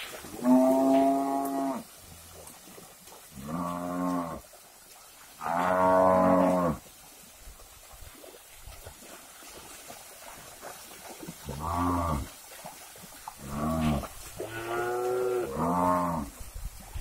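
Cattle in a herd mooing: about seven long calls from different animals. Three come early, then after a pause of about five seconds four more follow close together.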